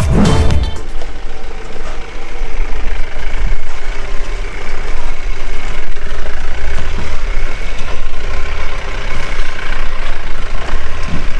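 Mahindra Bolero Pickup's 2.5-litre diesel engine running as the pickup creeps along a rough dirt track, a steady low rumble. Music from the previous scene cuts off about a second in.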